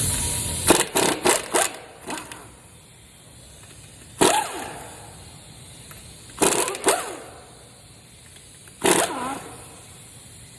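Sharp metallic clanks, each with a brief ring, from a socket and lug key working the lug nuts off a car wheel: a quick run of about four about a second in, then single clanks every two seconds or so. A hiss fades out right at the start.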